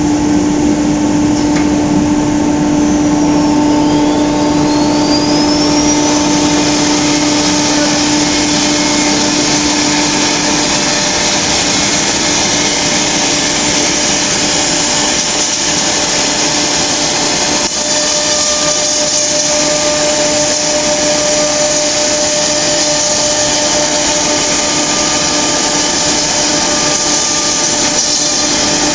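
Four-spindle CNC router running: a loud, steady machine noise with a whine. A spindle's whine rises in pitch a few seconds in, and the steady tones in the hum shift about ten and eighteen seconds in.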